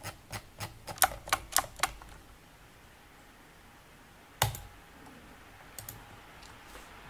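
Computer keyboard keys clacking: a quick run of about nine keystrokes in the first two seconds, then a single louder key press about four and a half seconds in and a couple of faint taps near the end.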